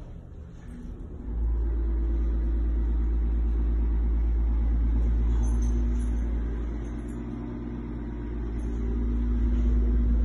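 A loud, steady low rumble with a faint hum above it. It starts suddenly about a second in, eases off briefly in the middle and cuts off at the end.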